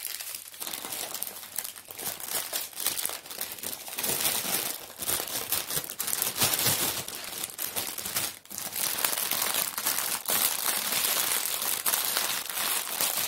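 Small plastic bags of diamond painting drills crinkling as they are gathered up and bundled together by hand, with a brief lull about eight seconds in.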